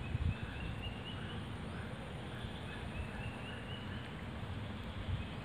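Outdoor ambience: a steady low rumble that flickers like wind buffeting the microphone, with faint, repeated high trilling animal calls over it.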